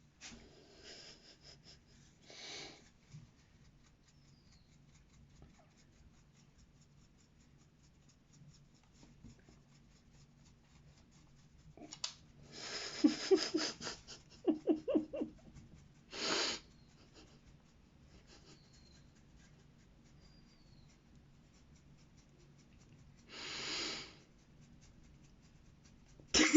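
A dog being scratched, mostly quiet, broken by a few short rustling, breath-like puffs and a brief run of faint squeaky sounds about halfway through.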